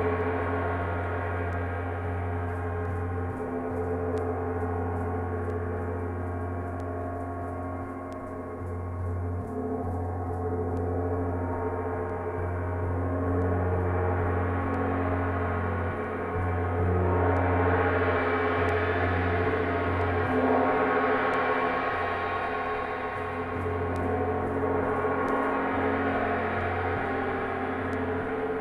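Gong sounding in a continuous wash of many overlapping ringing tones, with no single sharp strike; the sound swells brighter and louder about two-thirds of the way through, then eases back.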